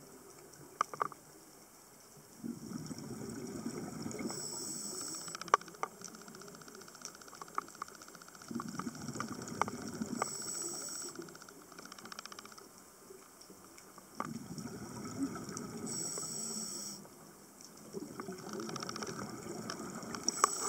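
Scuba diver breathing through a regulator underwater: a short hiss of inhalation, then about two seconds of rumbling exhaust bubbles, repeating about every six seconds, four breaths in all. Small sharp clicks come and go between breaths.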